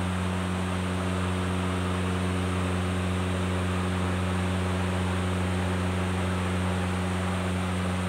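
Steady electrical hum with a loud, even hiss over it, unchanging throughout.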